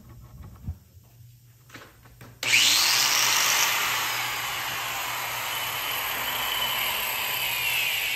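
Ryobi angle grinder fitted with an Arbortech carving wheel switched on about two and a half seconds in, its motor spinning up with a short rising whine, then running steadily and loudly.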